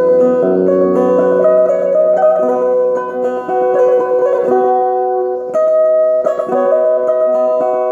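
A sape, the boat-shaped lute of the Dayak of Borneo, being plucked: a melody of notes that ring on and overlap, some held under the changing ones.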